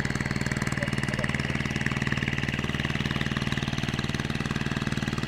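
A boat's engine running steadily with a fast, even beat.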